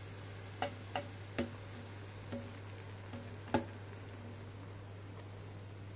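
A few light taps and clicks, about five, the loudest about three and a half seconds in: a plate knocking against the rim of a steel cooking pot as ground spices are tipped off it. A low steady hum runs underneath.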